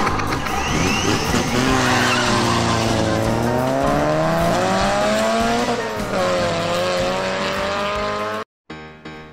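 Engine-revving sound effect for the ride-on toy airplane, its pitch sliding down and up several times, over background music. It cuts off abruptly about eight seconds in.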